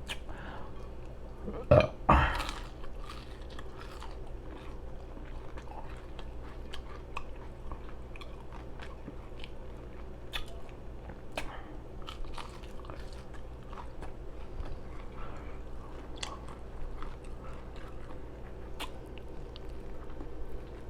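Close-up chewing of a pastrami burger with wet, open-mouth smacking and many small mouth clicks throughout. There are two louder bites or crunches about two seconds in.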